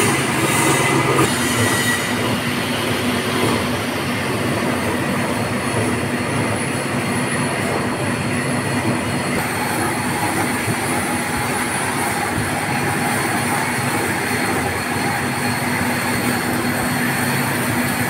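Metal lathe running, its cutting tool bevelling the end of a 2-inch steel pipe: a steady metallic machining noise with a few held tones, busier in the first couple of seconds.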